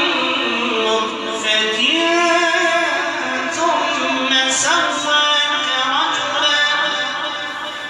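A man chanting a melodic religious recitation into a microphone, in long held notes that waver up and down, phrase after phrase.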